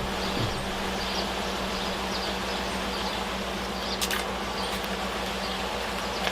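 Steady mechanical hum of a Viair 88P portable 12-volt air compressor running off the battery of an idling truck, with the engine's low rumble underneath. Faint bird chirps and a couple of light clicks.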